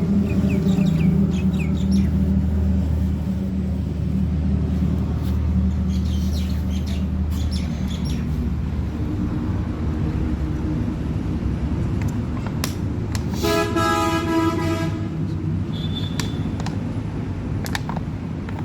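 A steady low motor hum that fades out about eight seconds in, then a vehicle horn blares once for about a second and a half, with scattered light clicks and knocks throughout.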